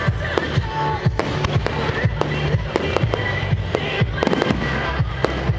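Firework display: a rapid run of sharp bangs and crackles as shells burst, with music playing underneath.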